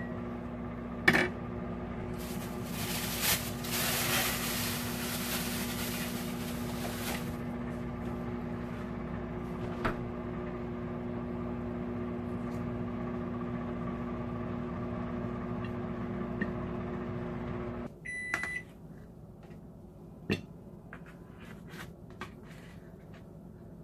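Countertop kitchen oven running with a steady electrical hum, which shuts off about three-quarters of the way in and gives a few short high end-of-cycle beeps. A few sharp clinks of a knife and fork on a china plate.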